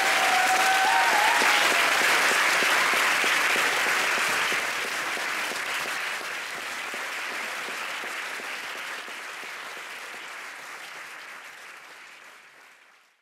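Audience and performers applauding, a dense patter of many hands clapping. It is loudest over the first few seconds, weakens after about four seconds and fades out near the end.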